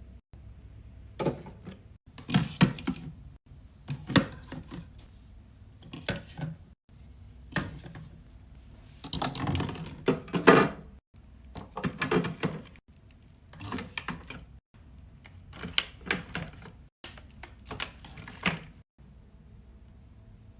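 Drinks and snacks being set into a mini fridge: clacks and taps of containers against the shelves and each other. They come in short clusters every second or two, broken by abrupt cuts.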